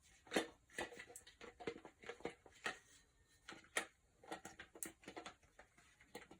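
Light, irregular clicks and knocks of washing machine agitator gear parts being handled and fitted together.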